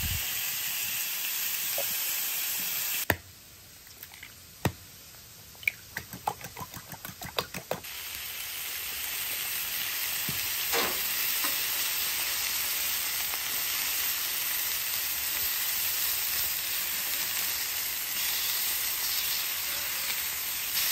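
Raw chicken tenderloins sizzling in avocado oil on a hot Halo flat-top griddle. A few seconds in, the sizzle drops away for about five seconds, with a string of sharp clicks, then comes back steady.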